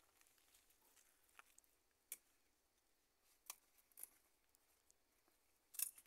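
Near silence broken by about five faint, sharp snips and snaps as stems are pruned from a garden plant; the loudest comes near the end.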